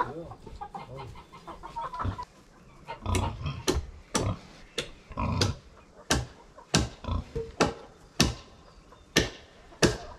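Chickens clucking, then from about three seconds in a steady run of hammer blows on wood, about two a second, as the log frame of a henhouse is built.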